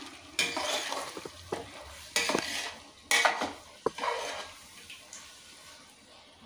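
Metal spoon scraping and clinking against a large cooking pot as chicken is stirred. It comes in four or five short bursts with a sharp clink about four seconds in, then dies down.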